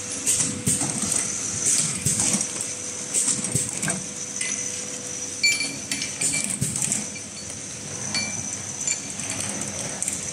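Automatic screw capping machine running with a steady hum and a high whine, and irregular clinks and knocks as glass jars with plastic screw caps move along the conveyor.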